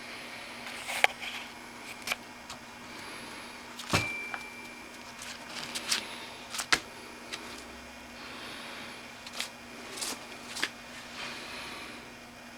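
Scattered clicks and metallic clinks of tools and motorcycle parts being handled, with one sharper clank about four seconds in that rings briefly, over a steady low hum.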